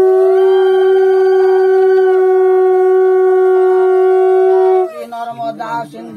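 Conch shell blown in one long, steady note that cuts off about five seconds in.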